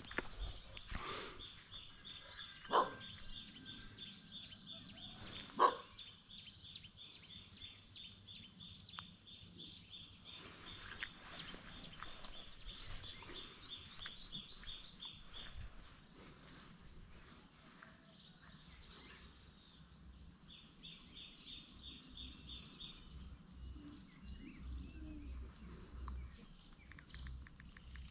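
Birds chirping and trilling over and over in the background, with two sharp, louder knocks about three and six seconds in.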